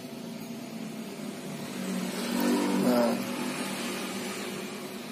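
A passing motor vehicle's engine. It grows louder over about a second, revs up briefly about three seconds in, then drops away.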